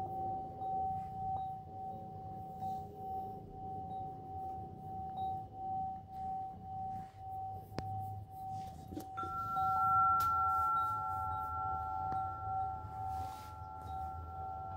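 A long, bell-like ringing tone that swells and fades in a slow, regular pulse. About nine seconds in, a second, higher ringing tone joins it.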